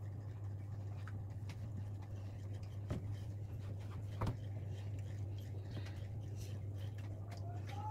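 Hands rubbing and squishing a butter-and-spice mix into the skin of a raw whole chicken: soft wet squelches and scattered small clicks, with one sharper click about four seconds in. A steady low hum runs underneath.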